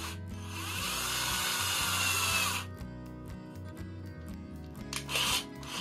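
Cordless drill spinning up for about two seconds, its motor whine rising in pitch, as it twists a soft stainless steel wire loop clamped in its chuck. A second brief spin follows near the end, over steady background music.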